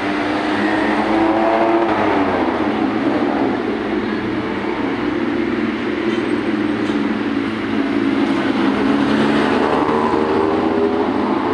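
Steady urban traffic rumble dominated by a vehicle engine, its pitch dropping about two seconds in and climbing again near the end.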